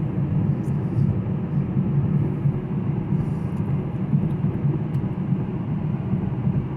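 Steady low rumble inside a 2018 Chevy Camaro SS cabin while it drives: the 6.2-litre V8 and the road noise at an even cruise.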